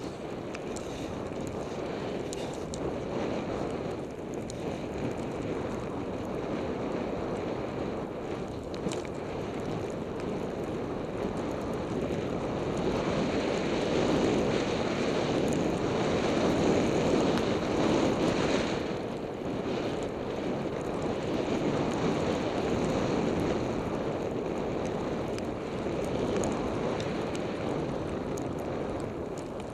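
Skis running through deep powder snow, a steady rushing hiss mixed with wind buffeting the camera microphone, louder for a few seconds around the middle.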